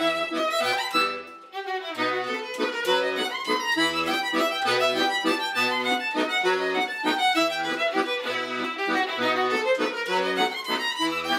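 Violin and piano accordion playing a valse musette as a duet: the violin carries the melody over the accordion's bass-and-chord waltz accompaniment. The music breaks off briefly about a second in, then picks up again.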